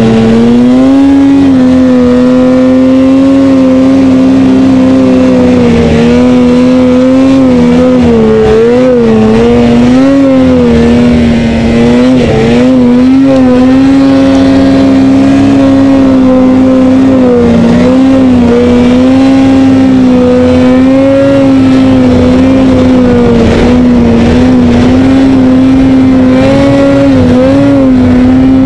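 Ski-Doo XP 800 two-stroke snowmobile engine held at high revs while the sled ploughs through deep powder. Its pitch stays mostly steady, with short dips and wobbles as the throttle is eased and reapplied.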